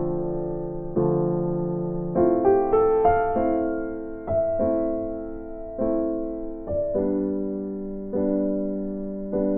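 Background music: electric piano playing slow chords, a new chord struck about every second and each left to fade.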